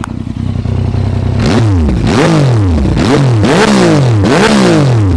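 Yamaha MT-09 (first generation) 847 cc three-cylinder engine through a Yoshimura aftermarket exhaust. It idles, then is revved in several quick throttle blips, each rising and falling sharply, and settles back to idle near the end.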